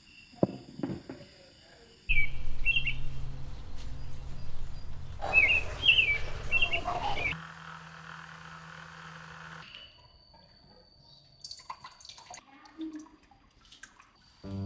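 Birds chirping in short calls over a loud, low, steady hum, in a few short segments that change abruptly, with scattered clicks and taps between them.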